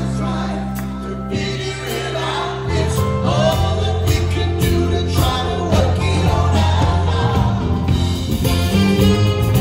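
Live band playing with several voices singing: a male lead and backing vocals over drums, bass and violins. The band comes in fuller and louder about three seconds in.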